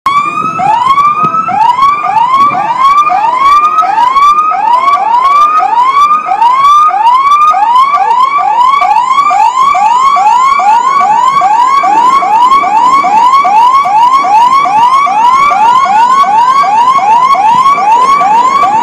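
Emergency-vehicle siren in fast yelp mode: rapid rising sweeps, about two a second, very loud. Partway through, a second siren wails more slowly and more faintly behind it.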